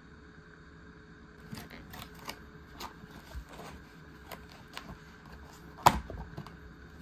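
Plastic deli container handled, clicking and crackling, then one sharp snap about six seconds in as its clear plastic lid is pried open.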